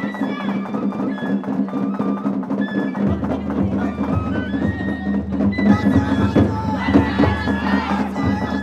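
Japanese festival hayashi music played on a float: a high bamboo flute melody moving in held, stepped notes over taiko drums and sharp clicking percussion.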